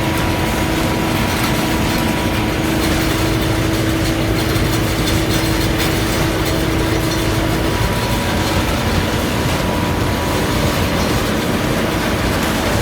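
Heavy farm machinery running steadily: a constant engine and mechanism noise with a steady hum that fades out about eight seconds in.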